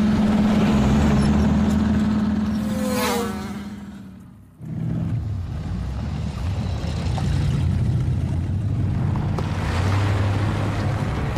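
A Land Rover Defender's engine running as it drives by, its pitch falling and fading away about three to four seconds in, then running steadily again. An insect's buzz is mixed over it.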